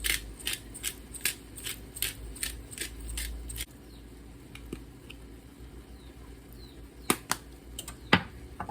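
Rapid, evenly spaced clicking of a kitchen utensil, about four clicks a second, for the first three and a half seconds, then a few scattered clicks and knocks.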